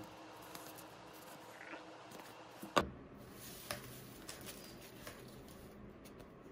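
Paper and cardboard handling in a box packed with shredded paper filler: light rustling and small clicks as stickers and a kraft envelope are handled. One sharp tap comes a little under halfway through, and a softer one about a second later.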